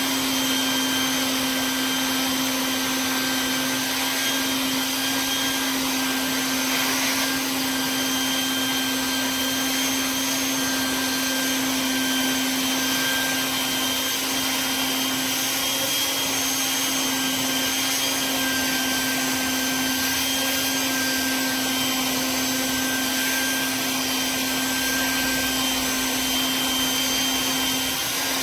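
Vacuum cleaner running steadily with a constant motor whine, sucking crud off the top of an engine's intake manifold.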